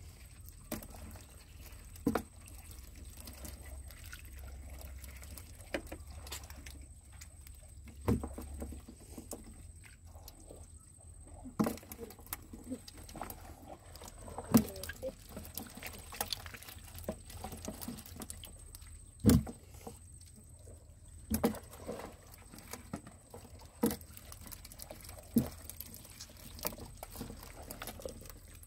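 Small fish being picked by hand out of wet mud and dropped into a plastic tub of fish: irregular wet slaps and knocks every second or two, the loudest two about halfway through.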